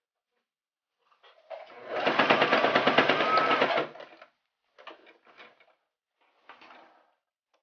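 Electric sewing machine stitching through layers of fabric to tack a strap down: one run of about two and a half seconds, then a few short bursts of just a few stitches each.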